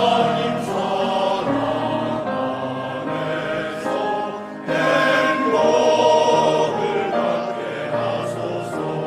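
Church choir singing a slow choral song with piano accompaniment, voices holding long notes. About four and a half seconds in, the sound drops briefly and the choir comes back in louder on a new phrase.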